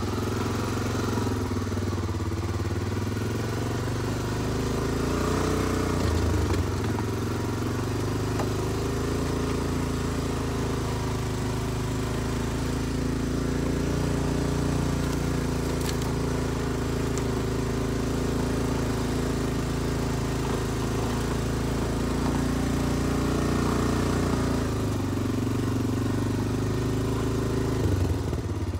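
Honda Foreman ATV's single-cylinder four-stroke engine running steadily as it is ridden, its pitch rising and falling a little with the throttle.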